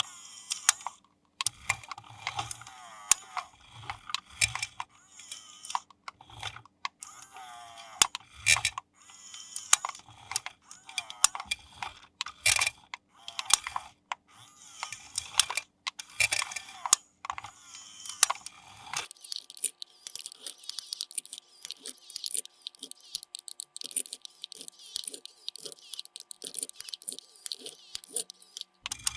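Hands handling toy packaging and plastic parts: many light clicks, taps and crinkling. About two-thirds of the way in this gives way to a faint steady hum with a run of light, evenly spaced clicks.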